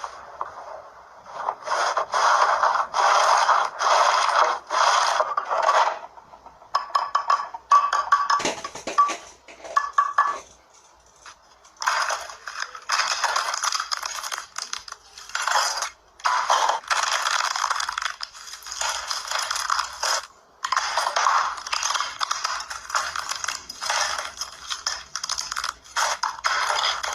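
Slime being squeezed and worked by hand, making repeated squishing and crackling strokes in runs of several a second, with short pauses between handfuls.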